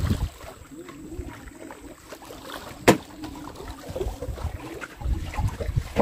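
Handling noises on a small boat with water and wind rumble, and a single sharp knock about three seconds in.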